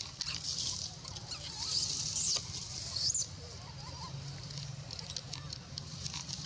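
Long-tailed macaque giving high-pitched squealing cries, loudest about two and three seconds in, over a steady high hiss with scattered small clicks.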